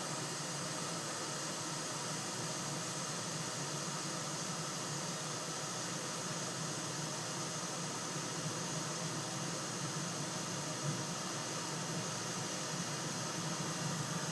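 Steady airy hiss of a small blower running on a soldering bench, with faint steady high tones and no distinct knocks or clicks.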